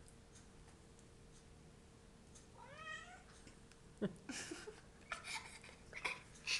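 A domestic cat gives one short meow, rising and then falling in pitch, about three seconds in. From about four seconds on come a few short, breathy sounds, louder than the meow.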